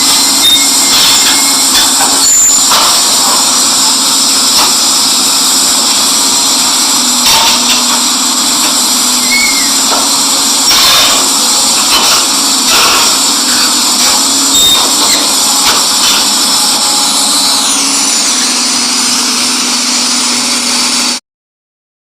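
Excavator at work: steady engine and machinery noise with scattered metallic knocks, stopping abruptly near the end.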